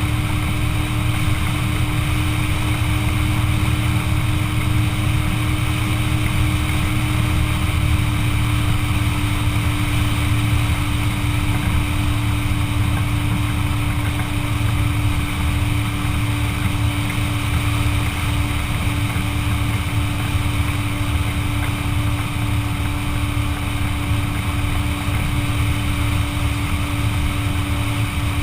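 Motorboat engine running steadily, a constant drone with a steady hum and no change in speed.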